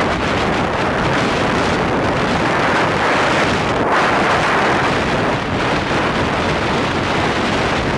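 Wind rushing over the microphone of a moving motorcycle, a loud, steady noise that mixes with the motorcycle's road and engine sound.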